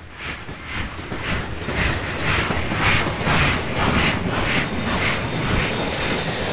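Steam locomotive chuffing at a steady rhythm of about two chuffs a second, fading up at the start; high steady tones join near the end.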